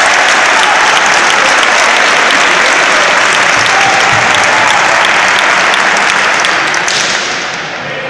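Crowd applauding, a dense steady clapping that dies away over the last second or so.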